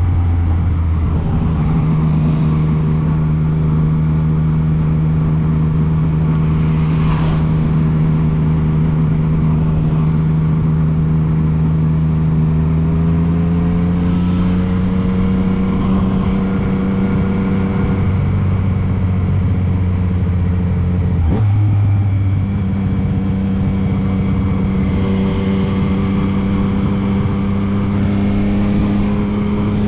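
Yamaha MT-09 motorcycle's three-cylinder engine running at steady riding revs. The pitch rises slowly around the middle, drops about two-thirds of the way through with a sharp click, then picks back up and holds.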